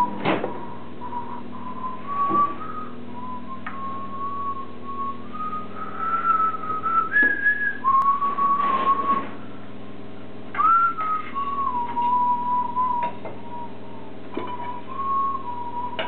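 A person whistling a slow, wandering tune over a steady low electrical hum, with a few knocks and clunks as the insulating kiln pieces are handled.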